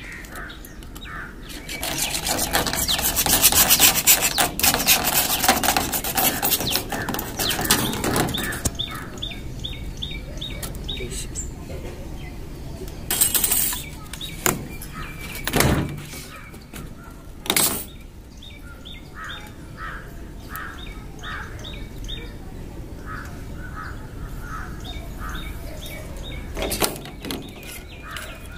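A fast rasping scrape for the first several seconds, the loudest sound, then a few sharp knocks around the middle. From about a third of the way in, a bird calls over and over in short chirps, about two a second.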